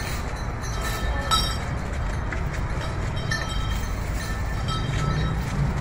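Steady low rumble of vehicle engines and road traffic, with a few brief faint high tones over it.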